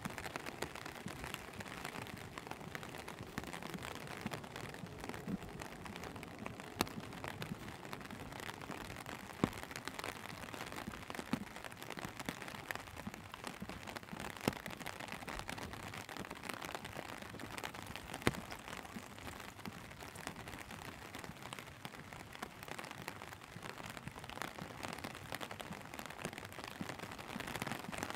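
Steady rain falling: an even hiss with scattered sharp ticks of drops landing.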